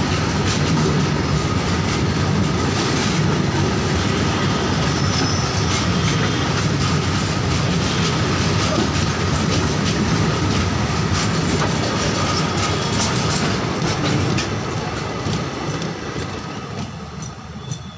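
Freight train of tarpaulin-covered wagons rolling past at close range, the wheels clattering over the rail joints, with a thin steady whine. The noise fades from about fifteen seconds in as the brake van passes and the train moves away.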